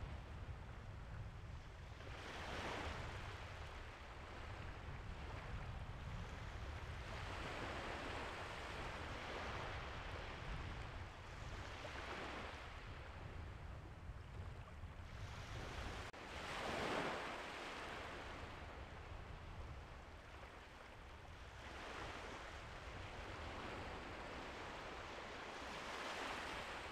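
Small waves breaking and washing onto a sandy beach, swelling and fading about every four to five seconds, over a low rumble of wind. The loudest wave comes about two-thirds of the way through.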